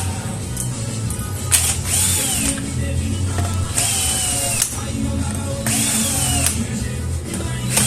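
Power screwdriver taking apart a horn compression driver, run in three short bursts about two seconds apart, its motor whine rising then falling with each trigger pull. Background music plays underneath.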